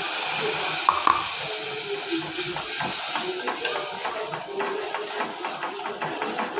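Spice paste frying in hot oil in an aluminium pot, hissing and sizzling strongly at first and settling down, with a couple of sharp clicks about a second in and light crackling as a spoon stirs it around the pot.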